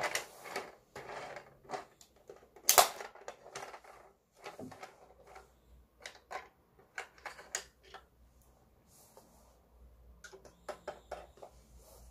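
Hard plastic toy airplane being handled and opened up: scattered clicks and clacks of plastic parts knocking together, with one sharp clack nearly three seconds in.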